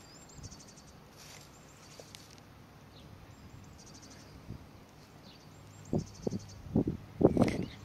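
Lamb tearing and chewing grass: a run of short crunchy bites about twice a second in the last two seconds. Underneath are high, rapid pulsing chirps and a low steady hum.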